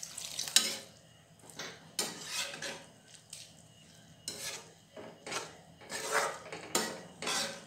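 A spatula stirring and scraping chopped vegetables and water around a kadai, in a string of separate, uneven strokes.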